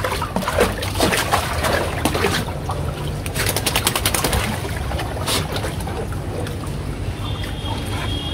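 Shallow water in a small frame pool sloshing and splashing as two young Rottweiler puppies wade through it and a person shifts in it; a quick run of splashes in the first half settles into gentler lapping.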